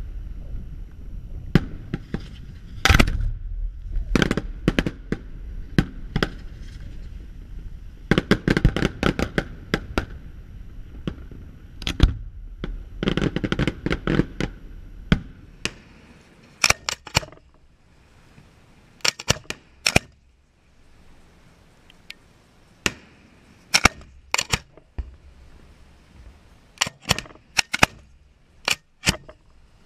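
Fireworks display: aerial shells bursting with sharp bangs. Over the first half the bangs come densely, with quick runs of crackling over a low rumble. In the second half they come as separate sharp reports, often two or three close together.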